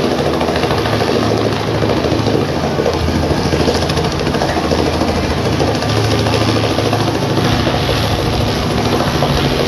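Light helicopter hovering low overhead: the steady, fast beat of its main rotor over the drone of its engine.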